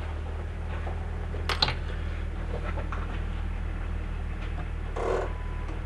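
Hand tools working on a driveshaft U-joint: one sharp metallic knock, then a few light clicks and a short scrape, over a steady low hum.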